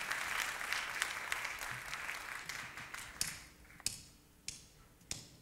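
Audience applause dying away, then four sharp clicks evenly spaced about two-thirds of a second apart: the drummer counting in the song on his drumsticks.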